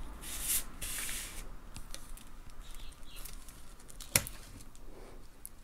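Soft rustling and crinkling of a plastic-covered diamond painting canvas being turned and handled on a table, then a single sharp tap about four seconds in.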